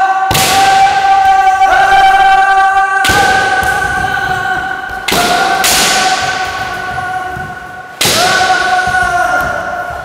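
Kendo practice: loud held kiai shouts from several practitioners overlapping, each set off by the sharp crack of bamboo shinai strikes and the stamp of bare feet on a wooden floor. A fresh strike and shout comes every one to three seconds.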